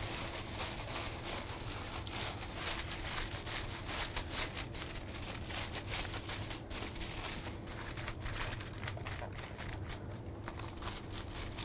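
Aluminium foil being crinkled and pressed down around the rim of a metal baking tray to seal it as a lid: a continuous run of small crackles.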